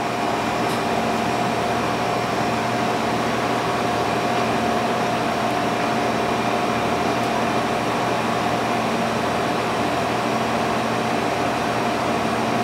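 Steady hum of a ventilation or air-conditioning fan, a constant whine over a low drone.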